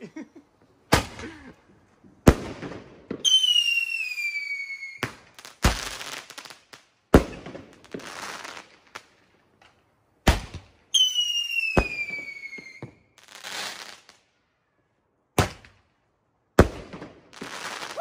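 A ten-shot consumer firework cake firing shot after shot: about ten sharp bangs at uneven intervals, each followed by a hiss. Twice a shot carries a whistle that falls in pitch for about two seconds.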